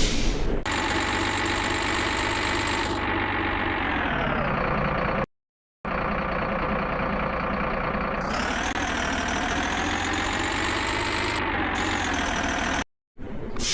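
Truck engine sound effect running steadily, its pitch sinking a few seconds in and climbing again later as if throttling down and revving up. It cuts off to dead silence abruptly twice.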